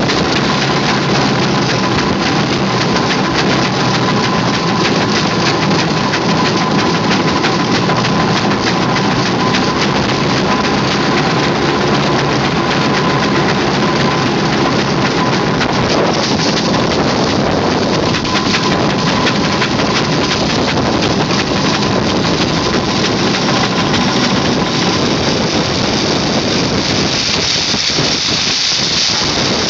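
Steam ploughing engine working, a loud continuous hissing mechanical noise with a steady thin whine that fades out near the end.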